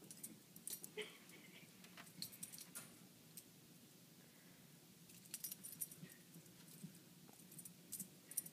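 Faint, scattered clicks and light jingling from a ferret and a puppy moving about and playing, in short clusters about a second in, around two to three seconds, around five to six seconds and near the end.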